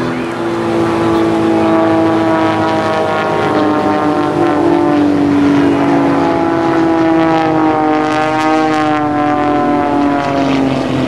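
Christen Eagle aerobatic biplane's piston engine and propeller running hard through aerobatic manoeuvres, a steady drone whose pitch wavers down and back up, rising and falling again near the end.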